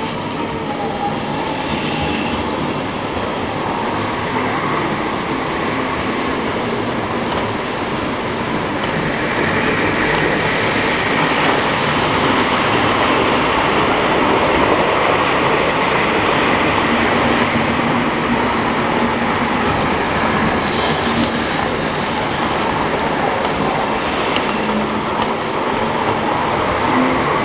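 Model electric trains running on the layout's track, making a steady running noise that grows a little louder partway through.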